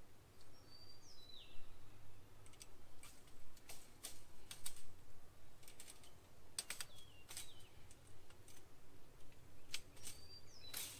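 Irregular sharp metallic clicks and scrapes of a wire fence clip being wrapped around a steel T-post, fastening woven wire fencing to the post.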